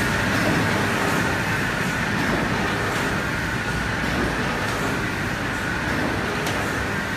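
Large sheet-printing machine running: a steady mechanical rumble and hiss, with a few faint clicks now and then.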